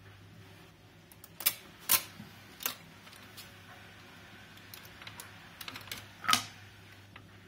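Garrard Type A record changer cycling: a few sharp mechanical clicks and clunks as the mechanism works, the loudest about six seconds in, over a steady low hum.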